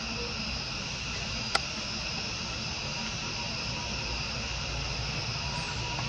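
Steady high-pitched insect chorus with a low rumble beneath, and a single sharp click about one and a half seconds in.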